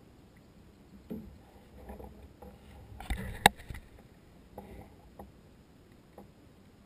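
Scattered knocks and bumps against a plastic kayak as a caught redfish is lifted aboard and handled, with one sharp knock about three and a half seconds in.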